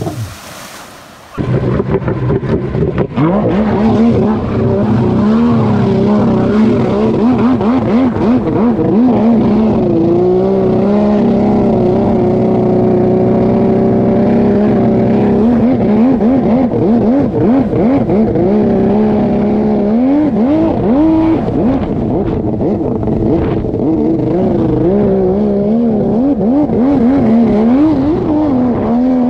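Yamaha SuperJet stand-up jet ski's custom 1200cc two-stroke triple engine, heard from on board as it is ridden. The engine revs up and down over and over, holds a steadier pitch for a few seconds around the middle, and climbs sharply again near the end. The sound drops away briefly just before the engine comes in loud about a second in.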